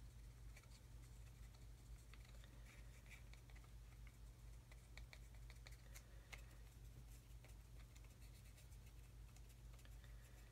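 Near silence: a steady low hum with faint, scattered ticks and scratches of a fine paintbrush working dry weathering pigment onto a small brass model exhaust pipe.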